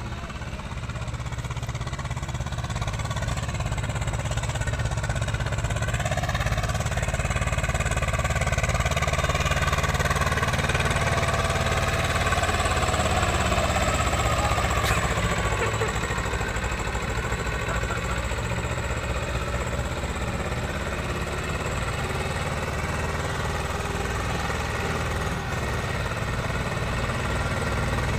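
Swaraj 724 XM tractor's two-cylinder diesel engine running under load as it hauls a fully loaded trolley, growing louder over the first ten seconds as it draws near, then easing slightly.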